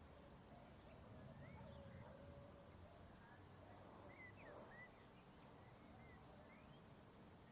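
Faint birds chirping: short rising and falling notes, scattered and clustering near the middle, over a quiet low rumble of open-air countryside ambience.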